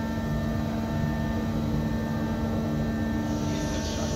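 Steady machinery hum with several fixed tones from an Antonov An-124-100's powered systems during a landing gear retraction test on jacks; a hiss builds near the end.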